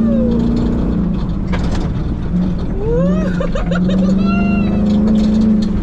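Engine of a rally-prepared Lexus LX570 pulling hard on a dirt track, heard inside the cabin: a steady drone whose pitch dips briefly a couple of times midway and then holds, with knocks and rattles from the rough ground.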